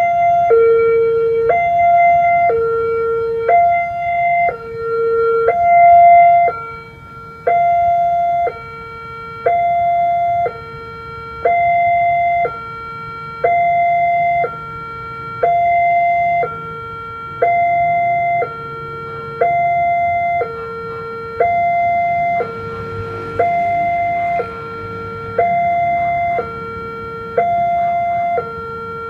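Railway level-crossing warning alarm sounding from the loudspeaker on the crossing signal: a higher and a lower electronic tone alternating in a steady ding-dong, each tone lasting about three-quarters of a second. It is the crossing's active warning that a train is approaching.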